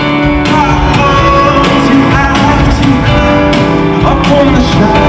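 Live rock band playing loudly: a singer over strummed guitar and a steady drum beat.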